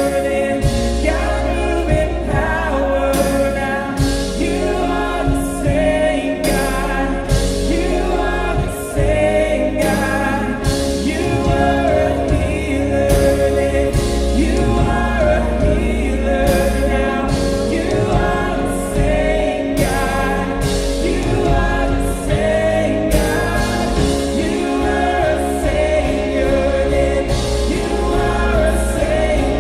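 Live worship band playing a song: several voices singing together over drums, bass, guitars and keys, with a steady drum beat. Recorded from the room, so the sound carries the hall's echo.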